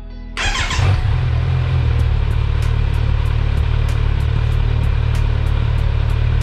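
Kawasaki Z900 SE's 948 cc inline-four on its stock exhaust, started about half a second in: a brief rising crank-and-catch, running a little higher for about a second, then settling into a steady idle.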